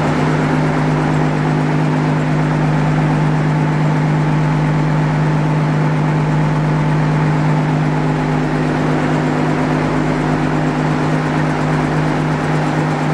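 Diesel machinery in a motor ship's engine room running with the ship under way: a loud, steady drone with a strong constant low hum and no change in speed.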